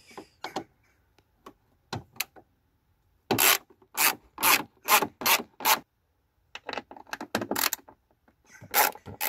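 Socket ratchet on a 10 mm socket and extension bar, swung back and forth to undo a battery-tray bolt. It gives a run of about six short rasping strokes, roughly two a second, starting about three seconds in, and a few more quieter strokes near the end.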